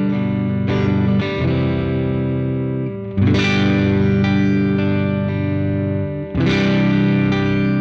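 Electric guitar played through a Catalinbread Dirty Little Secret MkIII overdrive pedal: distorted chords, each left to ring, with hard strums a little over three seconds in and again about six seconds in.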